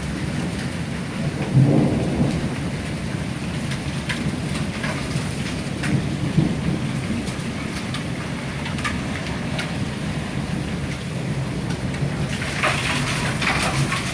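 Hail falling hard, a steady patter on the ground with many sharp clicks of single stones striking. Low rumbles swell up about one and a half seconds in, the loudest moment, and again around six seconds.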